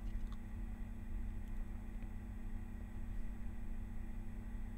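Room tone of a voice-over recording: a steady low hum with a faint hiss, with nothing else happening.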